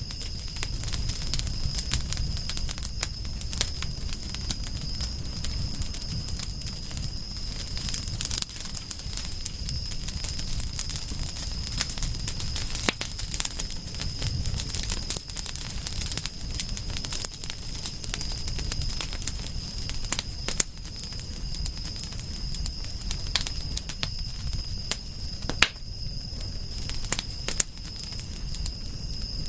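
Campfire burning, crackling with frequent irregular pops and snaps over a low rumble, with a steady high-pitched tone behind it.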